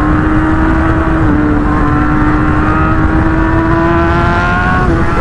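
Motorcycle engine running under way, its note climbing slowly as it pulls, with a brief drop in pitch shortly before the end. A heavy low rumble sits under the engine note.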